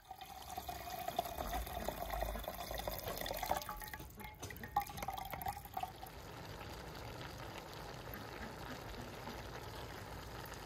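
Cloudy water poured in a steady stream from a bowl into a partly filled enamel basin, splashing and gurgling, for about six seconds. After that a quieter steady hiss continues.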